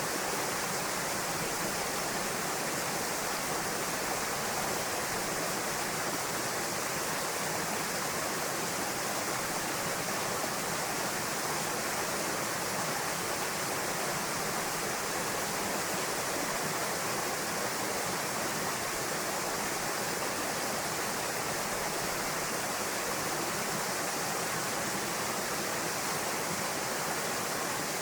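Waterfall pouring into a rocky pool, a steady unbroken rush of falling water.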